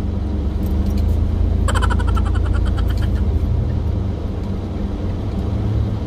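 Inside a moving vehicle on a snow-covered road: a steady low rumble of engine and tyres with a faint hum. About two seconds in, a brief buzzy rattle of rapid clicks lasts about a second.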